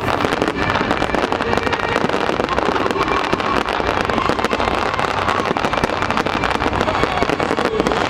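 Fireworks display: a dense, continuous crackling and popping of bursting shells with no pause.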